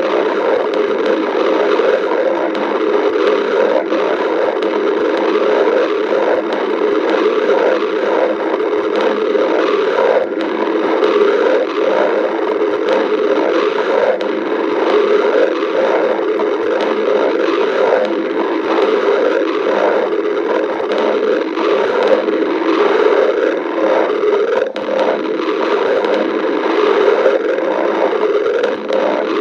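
A hungry stomach growling: a continuous rumbling gurgle, dense with short bubbling pops, that never pauses.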